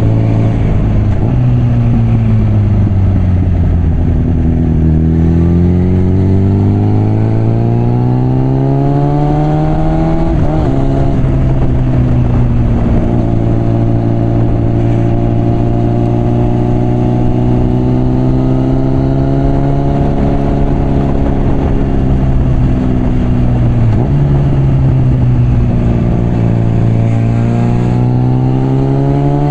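Suzuki GSF650 Bandit's inline-four engine through a Mivv exhaust, riding. The revs sink, then climb for several seconds and drop sharply about ten seconds in, as at an upshift. They hold fairly steady for a while, then dip and climb again near the end.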